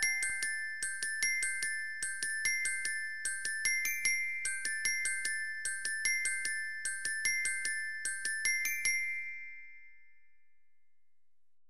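Closing background music: a light tune of quick, bright struck notes, about three or four a second, over two held high tones, fading out about nine seconds in.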